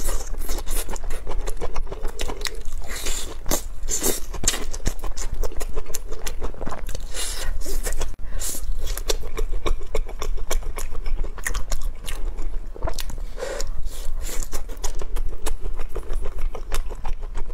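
A person biting and chewing crunchy spicy skewered food, starting with a grilled green chili pepper, close to the microphone: a dense, irregular run of crunching clicks. A low steady hum runs underneath.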